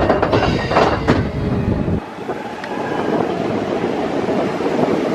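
Expedition Everest roller coaster train running on its track, a loud rumble with clatter and screeching, which changes suddenly about two seconds in to rushing wind noise on the microphone.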